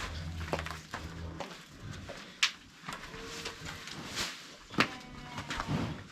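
Scattered knocks and scrapes of a person moving about a cow pen, with a low rumble in the first second or so and two sharper knocks near the middle and toward the end.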